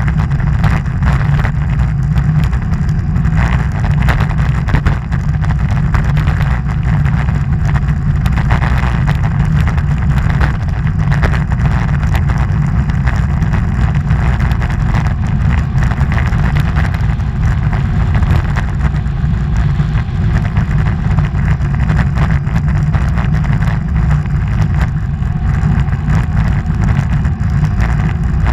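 Steady rushing wind on the microphone of a camera mounted on a moving vehicle, a continuous low rumble with a hiss over it.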